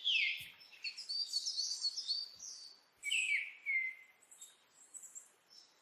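Small songbirds chirping: quick high notes, several sliding downward, in a busy run over the first couple of seconds and another short run about three seconds in, then a few faint calls.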